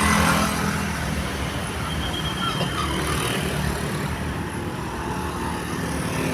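A road vehicle's engine running steadily amid traffic noise, with no horn tune sounding.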